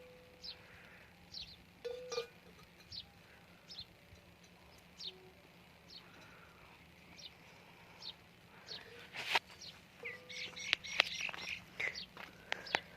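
A bird calls repeatedly with short, high, falling chirps about once a second. An animal bell clinks a couple of times, and a few sharp knocks come about nine seconds in, the loudest of them the loudest sound here.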